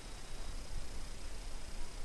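Steady background hiss with a low rumble and faint steady high-pitched tones; no distinct event.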